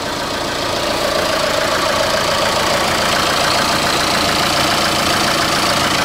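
Chevrolet Malibu diesel engine idling steadily, with an even hum.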